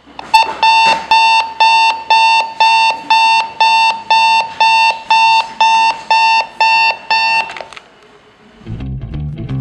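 Thomson digital clock radio's alarm beeping: a shrill electronic tone repeating evenly, about two and a half beeps a second, going off as the display reaches 7:00. It cuts off suddenly about eight seconds in as a hand reaches over the clock.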